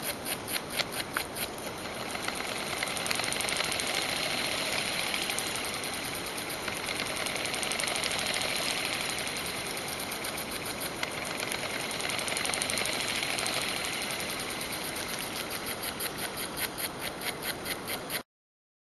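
Homemade solenoid engine running. It starts with a few sharp clicks a second, quickens into a fast, continuous rattle for most of the stretch, then slows back to separate clicks before the sound cuts off suddenly near the end.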